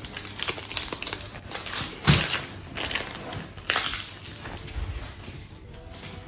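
Rustling and scattered clicks and knocks as a printed cloth pillow cover is handled and spread out on a glass-topped table, with a louder thump about two seconds in.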